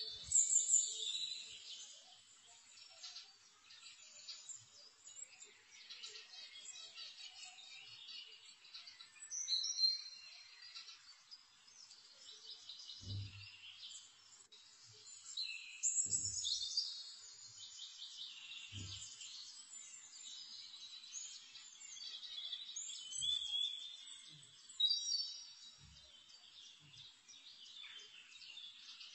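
Many small birds chirping and twittering in quick, overlapping calls, with a few faint low thumps scattered through.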